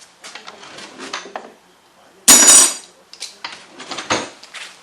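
Tools and small hard parts being handled and set down on a workbench: a string of clicks and knocks, with one loud rattling clatter a little over two seconds in.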